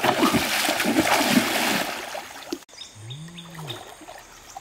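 Water splashing for about two and a half seconds, cut off abruptly, then a short low hum that rises and falls in pitch.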